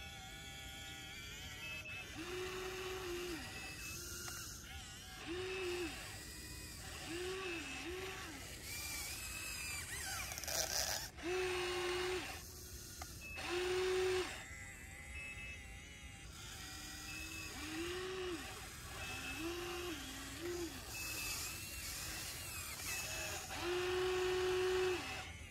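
Huina 1593 RC excavator's small electric motors whining in short bursts as the boom, arm and bucket move, each whine rising to a steady pitch, holding for a second or so, then dropping off. Louder rushing scrapes of the bucket in dirt come now and then, the loudest near the end.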